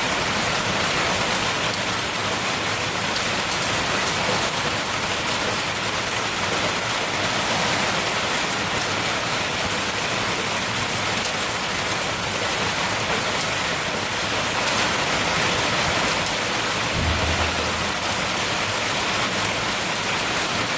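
Large hailstones pounding on streets and roofs, a dense, steady noise with no letup. A brief low rumble comes about three seconds before the end.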